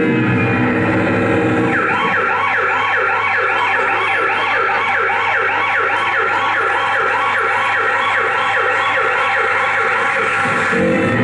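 Recorded emergency-vehicle siren sound effect in a fast yelp: rising sweeps about three a second, starting about two seconds in and stopping shortly before the end, over a low steady hum.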